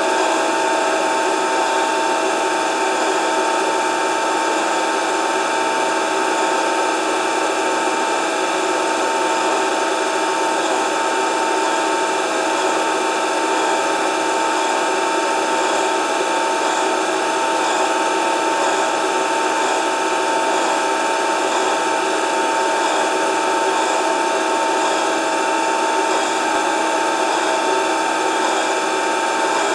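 Grinding machine running steadily in a machine shop, a continuous whine with an even hiss, as light grinding passes are taken.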